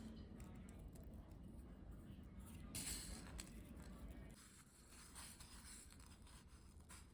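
Near silence with faint dry rustling and small clicks, dry vermicelli strands being handled as a potato nest is coated in them.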